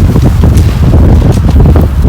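Strong wind blasting across the microphone: a loud, continuous low rumble with irregular crackling.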